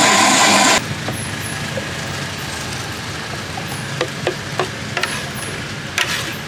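Electric blender running at full speed, then switched off abruptly about a second in. A few light clicks and knocks follow over steady street background noise.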